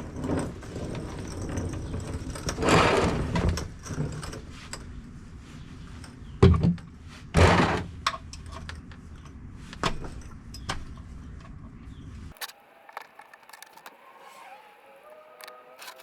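Clattering and knocking, with two loud knocks about six and a half and seven and a half seconds in. At about twelve seconds it cuts to a much quieter stretch with a few faint steady tones.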